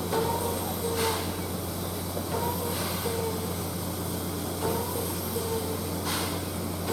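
Double-headed steam locomotives standing and working, with a steady low hum and four short bursts of steam hiss. A short pitched tone repeats about every second and a quarter.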